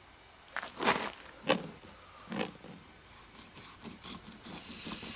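Knife cutting into a striped bass behind the head on a plastic cooler lid: three short, loud strokes about a second apart, then a run of faint quick ticks.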